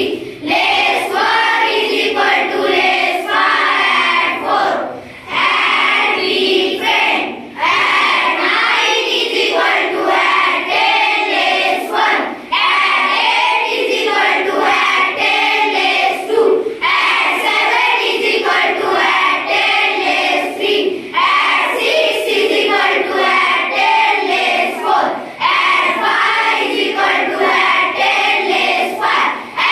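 A group of children reciting abacus formulas together in unison, in a sing-song chant phrased line by line with brief breaths between lines.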